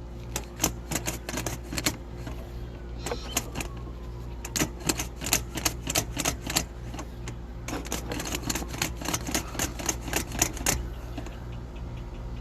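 Sharp clicking in irregular runs, several clicks a second, from a sewer inspection camera rig being worked, over a steady low hum.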